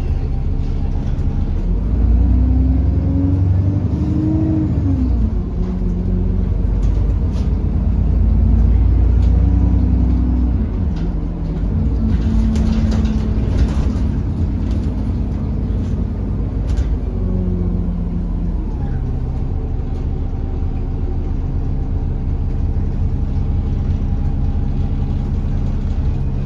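London bus running on the move, heard from inside: a steady low engine and drivetrain hum, with whining tones that rise and fall several times as it speeds up and slows, loudest in the first half. Scattered short rattles around the middle.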